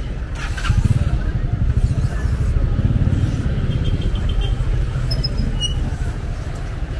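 Street traffic: a motor vehicle's engine running past close by, its low rumble loudest from about one to four seconds in.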